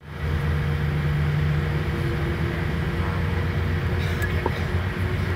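Steady cabin noise inside a Boeing 787-8 taxiing: a low hum from the idling engines and cabin air, with a faint steady tone above it. A couple of small clicks come about four seconds in.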